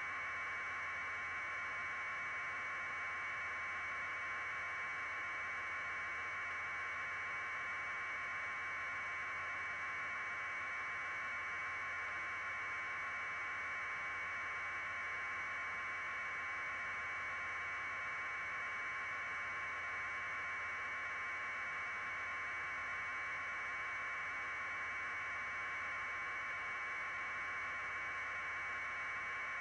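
Steady hiss like radio or broadcast static, with no change or break, narrowed to a band of middle pitches with a faint low hum beneath it.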